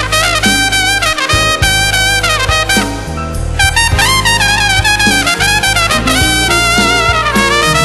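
Trumpet playing a wavering, ornamented solo line with vibrato and quick runs, over live band accompaniment with a steady low bass and regular drum hits.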